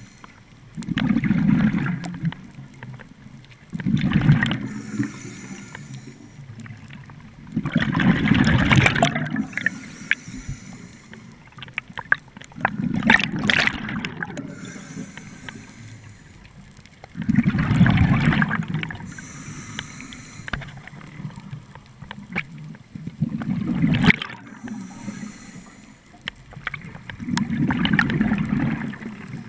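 Scuba diver's exhaled breath bubbling out of a regulator underwater in bursts of gurgling, about seven times, roughly every four seconds. Between the bursts there is a fainter high hiss of air drawn through the regulator.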